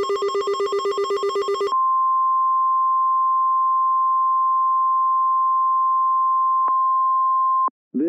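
Rapid electronic alert beeping, about eight pulses a second, stops under two seconds in. It is followed by the steady single-pitch 1050 Hz NOAA Weather Radio warning alarm tone, which signals that a warning is about to be read. A short click comes near the end, and the tone then cuts off.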